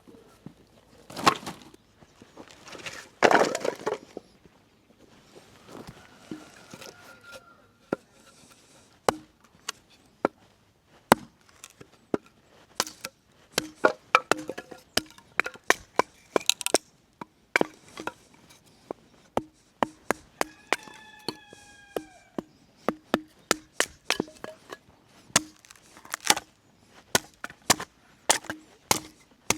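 Wood fire crackling, with sharp irregular pops that come thick and fast from about nine seconds in.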